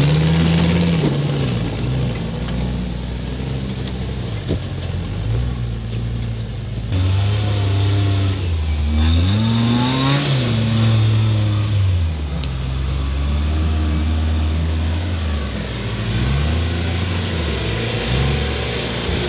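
Mercedes OM617 five-cylinder diesel engine in a Toyota rock crawler, revving up and down under throttle. It is short of the power it should have, which the owner puts down to valves still needing adjustment.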